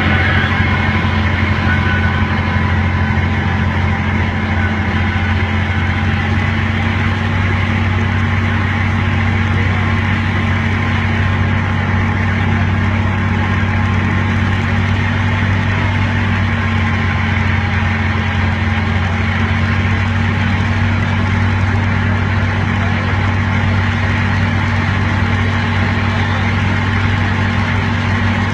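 Miniature park train's engine running steadily, a low, even drone with no change in pitch.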